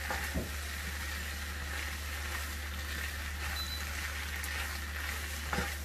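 Steady, gentle sizzling from a pan of bow-tie pasta and vegetables on low heat as a silicone spatula stirs through it, with a couple of soft knocks. A steady low hum runs underneath.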